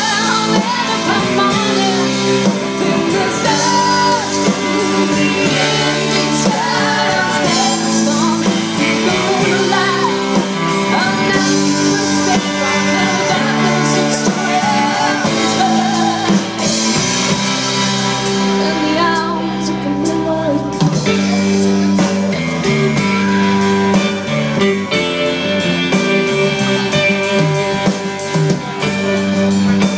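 A live band playing amplified through a PA, with electric guitars to the fore over a steady beat; a stretch without sung words between verses.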